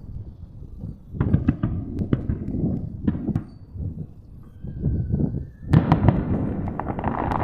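Aerial fireworks shells bursting in a run of deep booms with crackling. A thin whistle comes just before a dense barrage of booms and crackles about six seconds in.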